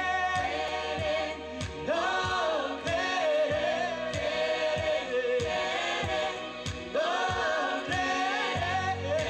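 Group of men and women singing a Christian worship song together into microphones, in long held notes over a backing track with a steady beat.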